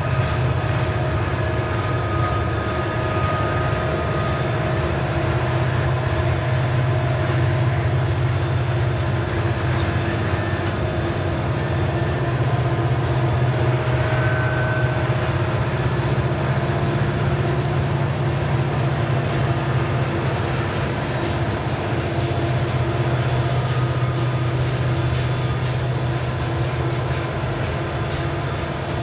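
Loaded coal train's hopper cars rolling past at steady speed: a continuous low rumble of steel wheels on rail with a fine rattle and faint steady tones above it.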